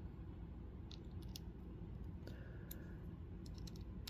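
Scattered light clicks and taps of a small folding knife and a screwdriver bit being handled, with a short faint scrape about two seconds in, over a low steady room hum.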